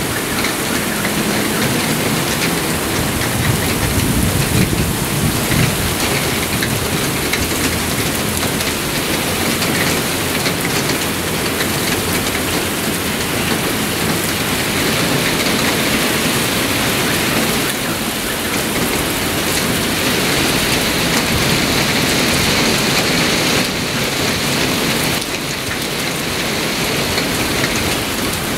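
Heavy thunderstorm downpour: a dense, steady hiss of rain, with squall wind gusting through the trees.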